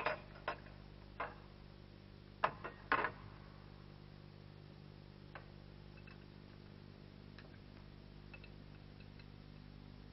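A few sharp metallic clicks and clinks, with a louder cluster of four about two and a half to three seconds in, then only faint ticks. This is a ring spanner and small steel fittings being handled at a locking-pin nut on a Wärtsilä diesel engine's camshaft housing.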